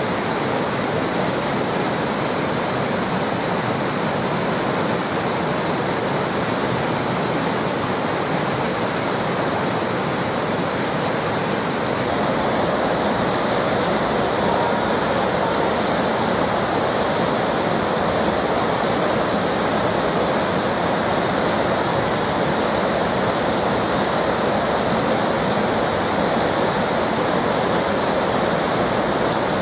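Waterfall: a steady rush of falling water. About twelve seconds in the sound changes, losing some hiss and getting deeper.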